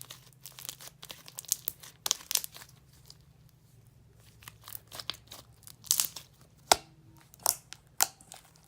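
Homemade slime being kneaded and squished by hand, giving irregular sharp crackles and wet pops, with a quieter pause a few seconds in.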